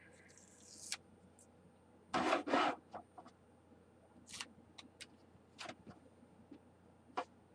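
A sticker being peeled from its backing and rubbed down onto the plastic toy wrestling ring: a short hiss at the start, two louder rubs a couple of seconds in, then scattered light rubbing and clicks.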